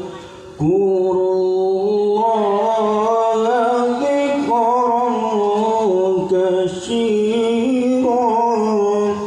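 A man reciting the Quran in the melodic tilawah style into a microphone, drawing out long ornamented phrases that waver up and down in pitch. He breaks for a short breath about half a second in and again briefly near the end.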